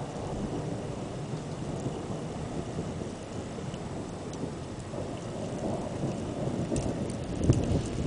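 Thunder from a thundersnow storm: a low, rolling rumble that keeps going and swells louder near the end.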